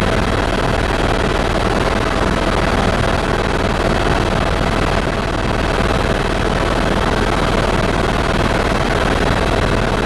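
Helicopter engine and rotor heard from inside the cabin in flight: a loud, steady drone with a faint steady whine running through it.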